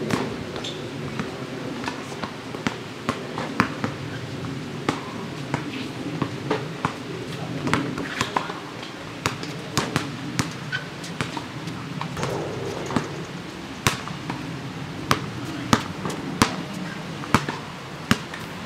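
A basketball bouncing on an outdoor asphalt court: sharp slaps, scattered at first, falling into a steady dribble over the last few seconds, over a low steady background hum.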